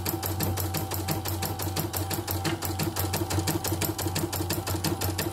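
CNY portable embroidery machine test-stitching a logo: a rapid, even rattle of needle strokes, about ten a second, over the steady hum of its motor.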